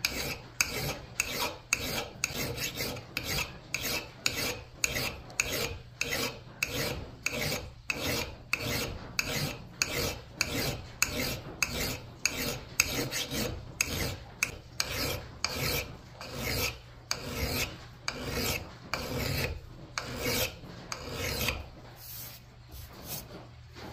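Small hand file rasping back and forth across the steel bit of a double bit axe in steady strokes, about two a second: hand-sharpening a moderately dull edge. The strokes stop shortly before the end.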